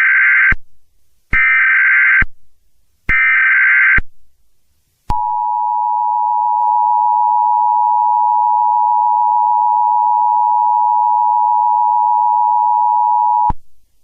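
Emergency Alert System tones: three loud bursts of SAME header data, each about a second long with short gaps, then the EAS two-tone attention signal held steady for about eight seconds before it cuts off. The sequence announces an emergency alert message.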